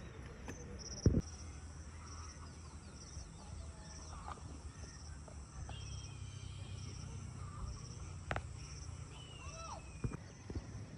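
Outdoor ambience: an insect chirps in an even, repeating pulse, birds call with a few short falling whistles, and a low rumble sits underneath. A sharp knock about a second in is the loudest sound, with a smaller one past the middle.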